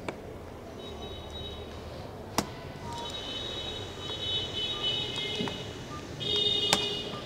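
Sharp plastic clicks and snaps from prying a laptop keyboard free of its latches: three in all, the loudest about two and a half seconds in. A high-pitched squeal comes and goes between them.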